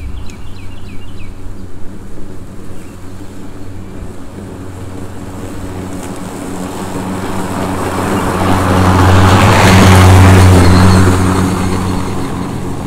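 Ryobi 40V brushless cordless self-propelled lawn mower running and cutting grass, a steady motor-and-blade hum with a rushing hiss. It grows louder as the mower comes up to the camera, is loudest as it passes close by about nine to ten seconds in, then eases off.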